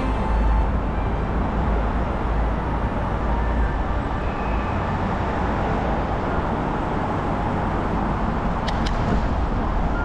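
Steady rushing noise with a heavy low rumble, typical of wind and rolling noise on a camera's microphone during a mountain-bike ride.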